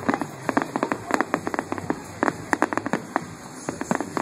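Fireworks crackling: a dense, irregular stream of sharp pops and snaps, several a second, from crackling bursts in the sky.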